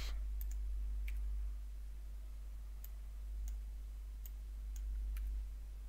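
Scattered computer mouse and keyboard clicks, about eight in a few seconds, as text is copied and pasted between form fields, over a steady low hum.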